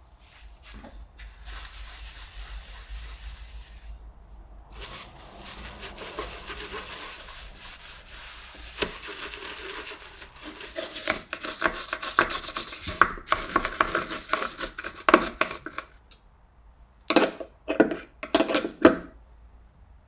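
Sponge scrubbing a stainless steel sink with silver stone cleaning paste in quick back-and-forth strokes, getting louder about halfway through. Near the end come a few short, separate knocks.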